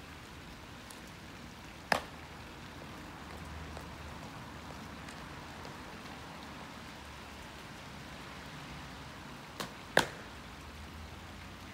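Steady light rain pattering, broken by two sharp knocks, one about two seconds in and one near the end, the second with a fainter knock just before it.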